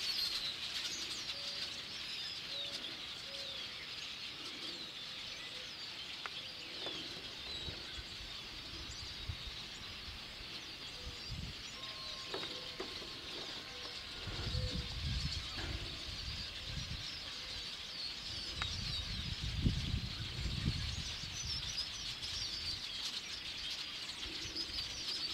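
A large flock of small birds passing overhead, many calling at once in a dense, continuous high chatter of short chirps. Two stretches of low rumble come about 14 and 19 seconds in.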